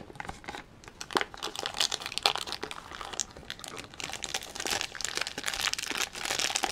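Plastic packaging of a Num Noms blind cup crinkling and crackling in irregular bursts as the lid is peeled back and the wrapped packet inside is handled, busier in the second half.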